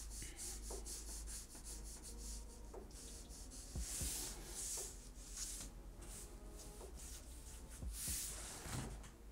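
Black felt-tip marker rubbing across paper in many short, quick strokes. A few strokes are longer and louder, about four seconds in and again about eight seconds in.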